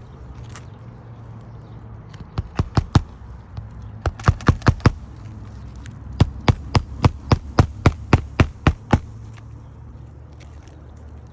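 Hammer blows during an asphalt shingle roof repair: three runs of quick, sharp strikes, about three to four a second. There are four, then five, then a longer run of about eleven that stops a couple of seconds before the end.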